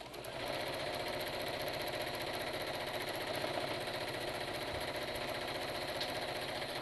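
Sewing machine running at a steady speed, stitching a seam through the cloth of a mask. It starts right at the beginning and stops at the end.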